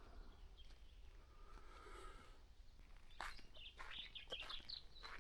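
Faint small-bird chirps begin about three seconds in, short and high, mixed with a few soft clicks or crunches.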